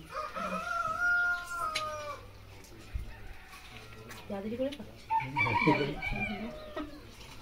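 A rooster crowing once, one long call of about two seconds near the start. A louder burst of shorter, broken sounds follows about five seconds in.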